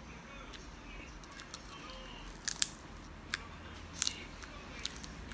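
Hard candy being bitten between the front teeth: a handful of sharp cracks and clicks, the loudest about two and a half seconds in.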